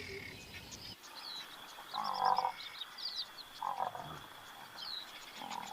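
Frogs croaking in short calls, three times about a second and a half apart, under brief high bird chirps. Background music trails off at the very start.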